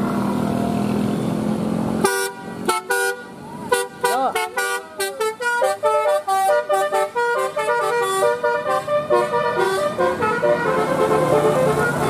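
A telolet 'Basuri' electronic melody horn on a passing minivan playing a quick tune of short stepped notes, with a few swooping, sliding tones early on in the tune. It starts suddenly about two seconds in over the van's engine and runs for about eight seconds before fading back into traffic noise.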